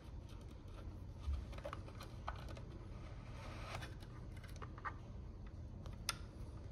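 Small scattered clicks and taps of a steel brake cable and its metal end fitting being handled and threaded at an electric scooter's rear disc-brake caliper, with a dull bump about a second in and a sharper click near the end.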